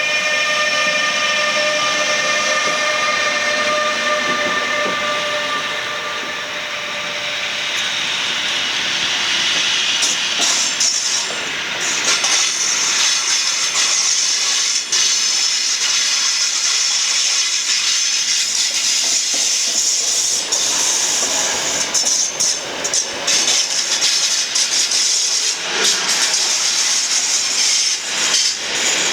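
Locomotive-hauled passenger train moving through a station: a steady whine that fades out about seven seconds in, then a high hiss with irregular clicks of the wheels over rail joints and points.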